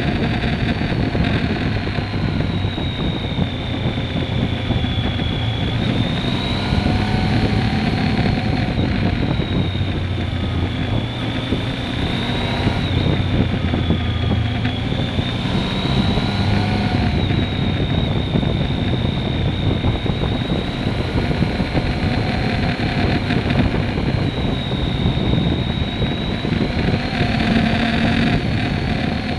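Triumph Speed Triple R 1050's inline three-cylinder engine running hard on the move, its pitch rising and falling again and again as the rider works the throttle through a string of bends.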